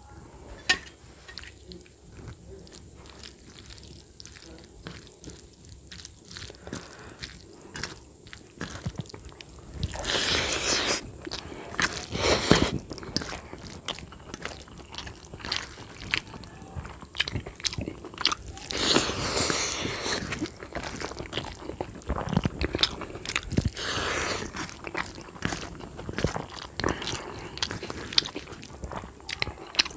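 Rice and curry being mixed by hand on a steel plate: wet squishing and rustling of the rice under the fingers, with many small clicks of fingertips against the plate, louder in a few stretches. One sharp tap under a second in.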